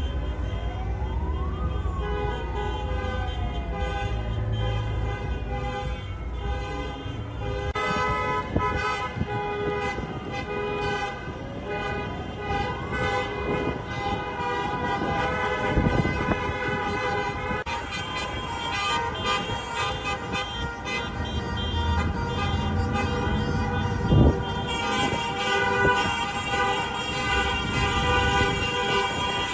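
Many car horns in a slow convoy honking continuously, their tones overlapping. A siren wails up and down twice in the first half, and a single sharp bang stands out about two-thirds through.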